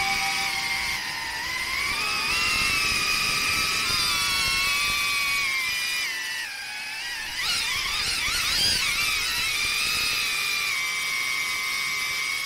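Whine of a BetaFPV Beta95X V3 ducted FPV drone's small brushless motors in flight, several pitches drifting together with the throttle. From about seven and a half seconds in, the pitch swings rapidly up and down through a few sharp throttle changes, then settles.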